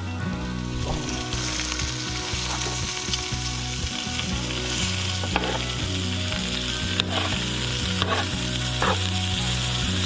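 Asparagus sizzling steadily in a hot pan with butter, with a few short clicks in the second half.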